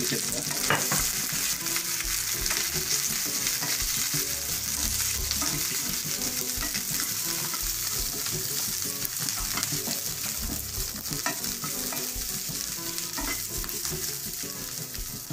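Garlic, curry leaves and green chillies sizzling in a little hot oil in a nonstick frying pan: a tempering (tadka) being fried. A spatula stirs them, scraping and tapping against the pan now and then over the steady hiss.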